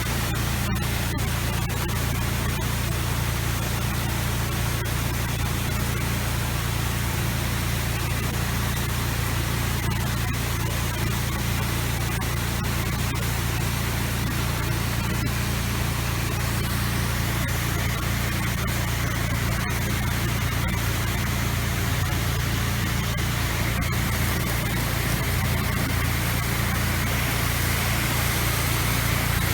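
Steady hiss of a high-volume rinse stream jetting from a soft-wash nozzle onto house siding, over the steady low hum of the pressure washer's engine.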